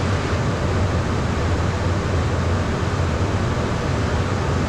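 Steady cockpit noise of a Beechcraft Premier 1A business jet in high-altitude cruise: an even rush of air and engine noise with a low hum underneath, unchanging throughout.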